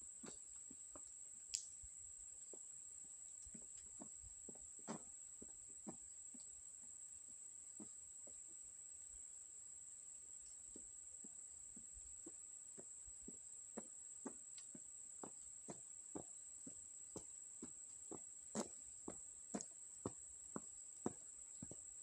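Steady high-pitched drone of insects, with faint footsteps on a wet asphalt road that fall into a regular pace of about two a second and grow louder over the last few seconds as the walker nears.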